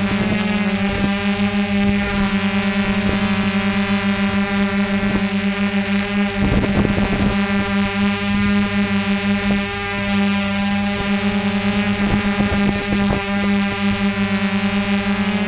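Small multirotor drone's propellers and motors humming steadily in flight, with a rapid flutter in the tone and a brief gusty rush about halfway through.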